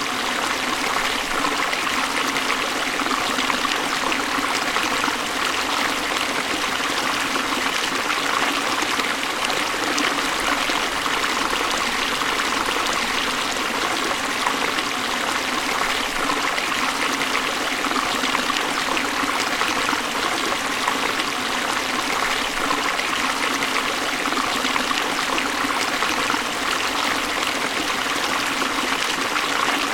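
Waterfall: a steady, unbroken rush of falling water, a bright hiss with little deep rumble and no change in level.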